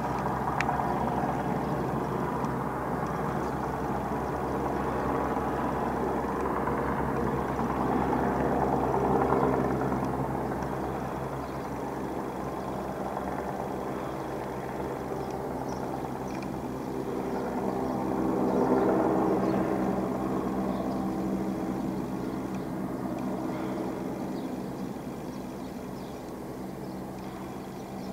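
Firefighting helicopter's engine and rotor heard from a distance: a steady drone that swells twice and eases off a little near the end, as it flies with a water bucket slung beneath it.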